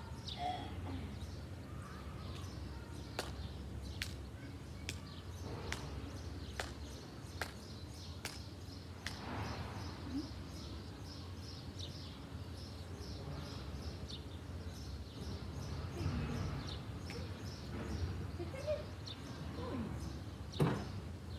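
Garden ambience: small birds chirping on and off over a steady low rumble, with scattered sharp clicks.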